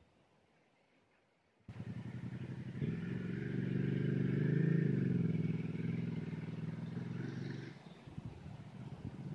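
Enduro dirt bike engine running. It starts abruptly about two seconds in, grows louder with a slight shift in pitch through the middle, then falls away near the end into uneven pulses.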